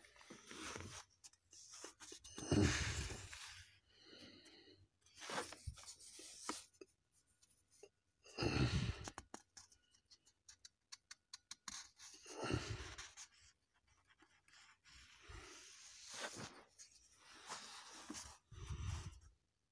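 Paper pages of a comic book rustling as they are handled and turned, in about six separate bursts a few seconds apart, with a run of faint clicks in the middle.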